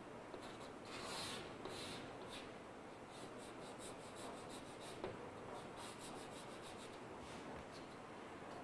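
Chalk drawing on a blackboard: faint, scratchy short strokes that come in quick runs.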